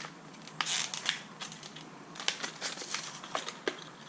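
Scattered small clicks and light rustling as a metal hose clamp is handled and slid onto a rubber fuel line, with a brief scraping rustle about two thirds of a second in.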